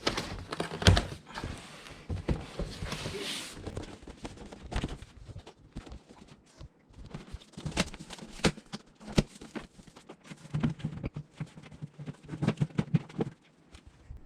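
Cardboard packaging being handled and opened: irregular knocks, taps and scraping, with a stretch of rustling in the first few seconds.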